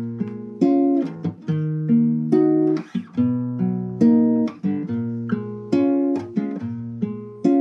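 Nylon-string classical guitar played fingerstyle: chords plucked in a steady rhythm, each ringing and fading until the next, with the bass note moving from chord to chord.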